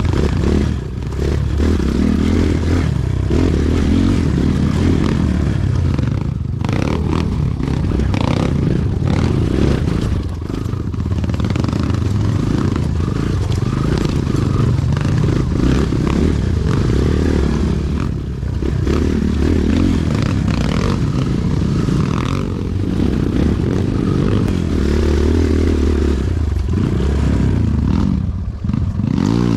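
Kawasaki KLX 140G dirt bike's single-cylinder four-stroke engine running steadily while riding, dipping briefly in level several times.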